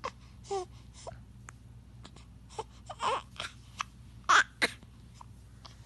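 Baby with hiccups making short, separate squeaks and whimpering cries, about eight in a few seconds, the loudest two close together about four seconds in.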